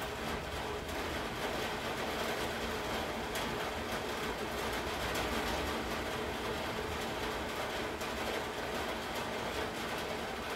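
Steady rain, an even rushing hiss with a few faint ticks of drops.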